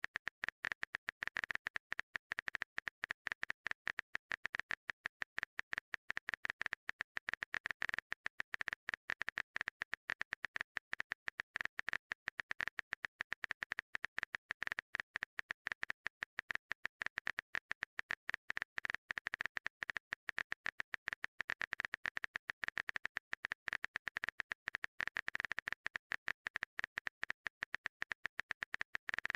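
Phone keyboard typing sound effect: rapid, uneven clicking, many clicks a second, without a break.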